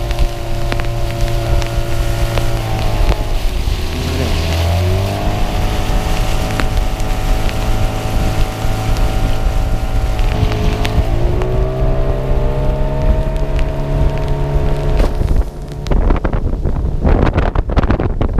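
Yamaha 9.9 outboard motor running under way, its engine note dropping and picking up again twice. Near the end the engine note stops and rough wind noise on the microphone takes over.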